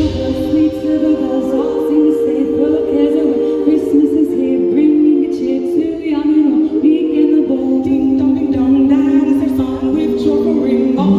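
A group of voices singing together without instruments, a choir holding long notes.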